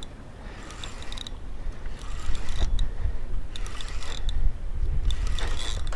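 Spinning fishing reel being cranked in several short spells, its gears whirring and ticking, as a hooked fish is reeled in against a hard-bent rod. Wind rumbles on the microphone underneath.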